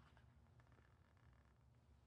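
Near silence: room tone with a faint low hum and a few very faint ticks.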